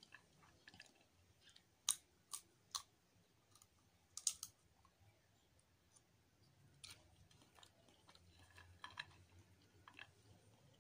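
Peanut shells cracking open in sharp snaps, three single cracks and then a quick cluster, followed by softer crackling and crunching as the peanuts are chewed.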